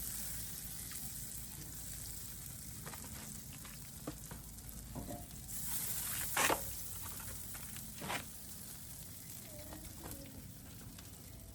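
Food sizzling as it fries, a steady hiss that slowly fades, with a few short knocks and clicks of cookware, the loudest about two-thirds of the way through.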